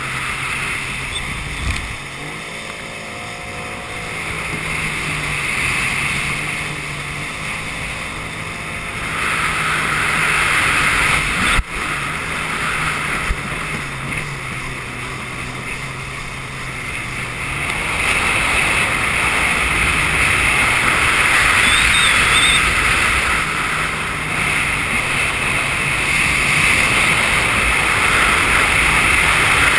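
Jet ski engine running under way, its note stepping up and down as the throttle changes, over the rush of water and spray against the hull. A single sharp knock comes about a third of the way through, and the rushing grows louder over the last third.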